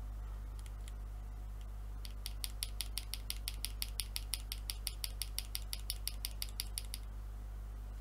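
Rapid, even clicking from a small plastic keyboard part worked in the fingers, about six clicks a second, starting about two seconds in and stopping about two seconds later than five...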